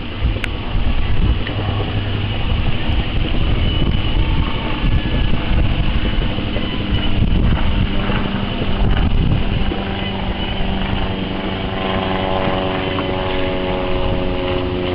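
Motorboat engine running steadily, with wind rumbling on the microphone; about eleven seconds in the engine's note becomes steadier and more tonal.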